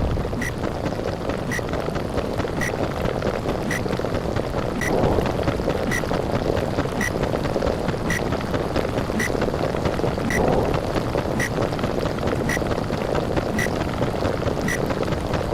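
Underwater sound effect: a steady muffled rushing, swelling about every five seconds. A short high click repeats just under twice a second.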